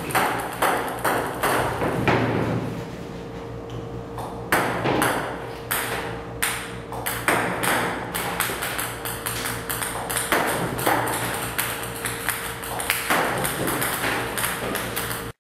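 Table tennis balls clicking as they bounce on the table, about two to three sharp ticks a second with a pause of about two seconds near the start, over a steady hum.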